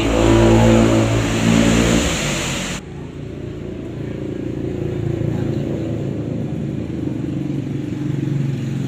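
An engine running steadily with a low hum. A loud hiss over it stops abruptly about three seconds in, and the hum goes on alone.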